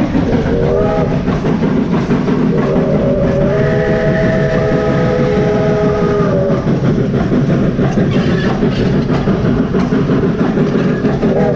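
Steam locomotive whistle blowing a chord of several tones: a short blast about half a second in, a long blast of about four seconds starting around three seconds in, and another starting near the end. Underneath is the steady rumble of the train running on the rails.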